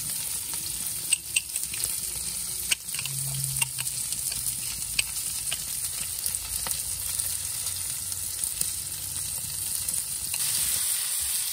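Dry-aged tomahawk ribeye searing in beef tallow on a hot cast iron plate: a steady sizzle with scattered spitting pops, most of them in the first several seconds.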